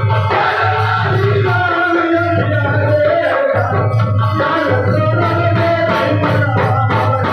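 A jhumar folk song sung live into a microphone over amplified music with a steady low beat and shaker-like percussion.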